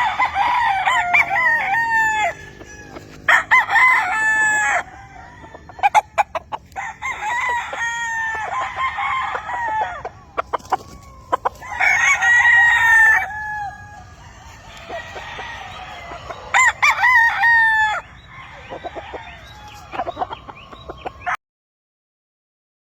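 Several gamefowl roosters crowing in turn, the crows sometimes overlapping, with short clucks between. The sound cuts off abruptly near the end.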